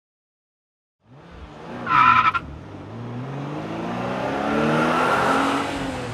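Toy ride-on car's electronic engine sound effect, revving up and rising slowly in pitch, with a short bright beep about two seconds in.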